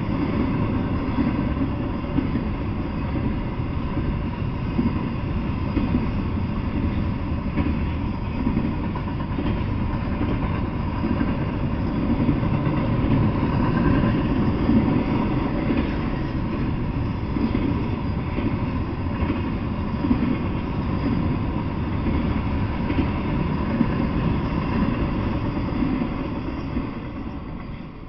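Double-stack intermodal freight train cars rolling past on steel rails, a steady low rumble of wheels on track. It fades away near the end as the last car clears.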